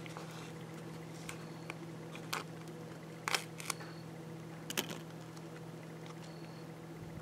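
A steady low hum with a few short, faint clicks and taps from MRE pouches being handled.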